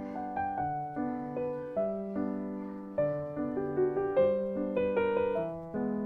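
Background music: gentle piano playing a melody over repeating chords, each note struck and fading.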